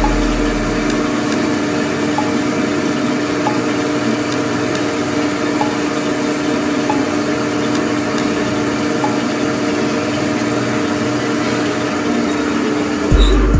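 CNC lathe running steadily: a constant machine hum with a few faint light ticks.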